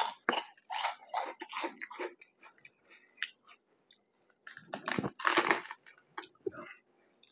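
Crunchy Funyuns onion-ring snacks crackling: short crunches through the first two seconds, then a longer, louder crunch about five seconds in as the toasted-bread sandwich topped with them is pressed down by hand.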